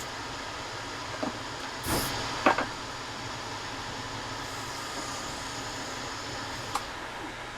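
Steady hum of workshop machinery or ventilation, with a short hiss of air about two seconds in, followed by a couple of sharp knocks and a few lighter clicks.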